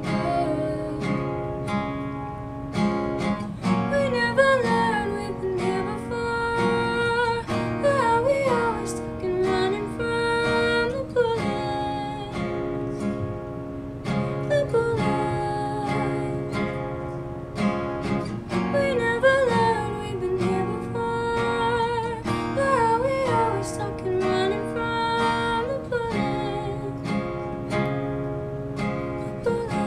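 A woman singing solo to her own acoustic guitar accompaniment, in phrases, with short guitar-only stretches around the middle and near the end.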